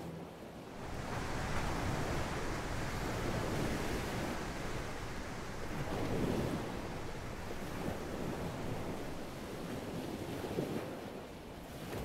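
Ocean surf: heavy waves breaking and washing, with some wind on the microphone. The sound swells and eases a few times.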